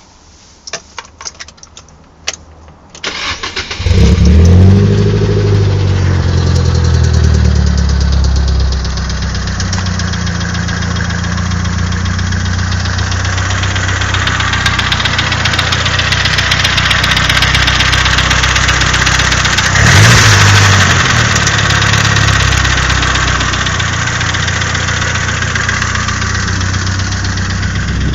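Nissan SR20DET turbocharged 2.0-litre inline-four: a few clicks, a brief crank, and the engine catches about four seconds in. It runs at a fast idle that settles to a steady idle, with a short throttle blip about twenty seconds in. The owner posts this engine for a knocking noise.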